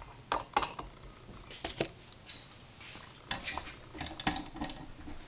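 Scattered metal clinks and taps of a hand tool against the turbo's exhaust manifold and its heated bolt, a few single knocks and then a quick run of them near the end.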